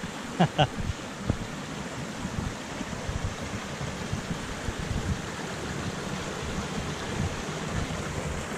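Small rain-swollen forest creek rushing over rocks, a steady hiss of running water, with uneven low thumps beneath it and two short sharp sounds about half a second in.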